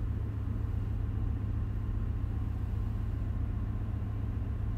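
Steady, deep rumble of a ship's engine-room machinery running in the background, unchanging throughout.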